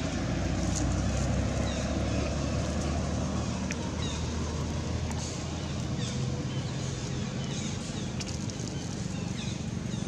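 Steady outdoor background noise: a low rumble under an even hiss, with a few faint short chirps and clicks.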